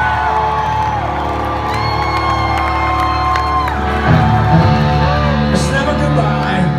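Live rock music at a concert's close, long held notes sliding slowly in pitch, with a heavier low part coming in about four seconds in, while the crowd cheers and whoops.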